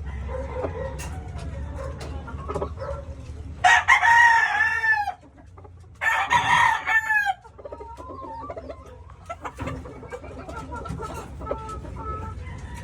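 Gamefowl rooster of the McLean Hatch line crowing twice, about four and six seconds in, each crow lasting about a second and a half. Softer clucking runs around the crows, over a steady low hum.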